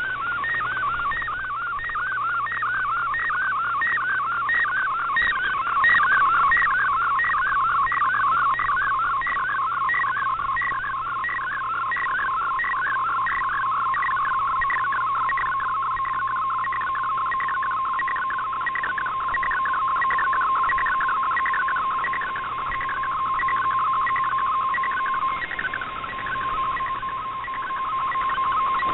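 MFSK64 picture transmission from a shortwave digital broadcast, heard through the receiver in AM mode: a warbling data tone whose pitch changes with each picture line, about two sweeps a second. Toward the end the upper tones thin out and it settles into a steadier tone.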